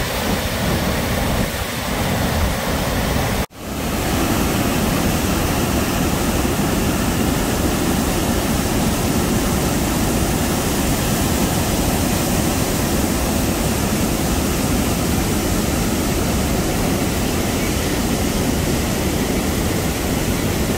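Loud, steady roar of a large waterfall, heard from its brink right beside the plunging water. The sound cuts out for an instant about three and a half seconds in, then carries on unchanged.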